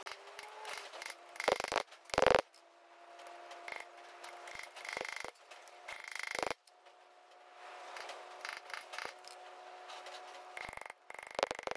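A steel hand tool scraping and clicking against the seal and bush seat inside a Ford TW25 tractor's front axle bore. It comes in irregular short metal-on-metal scrapes, loudest about two seconds in, under a faint steady hum.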